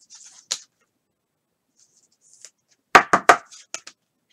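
Trading cards handled by hand: a brief rustle and a click near the start, then three sharp knocks in quick succession about three seconds in, followed by a few lighter clicks.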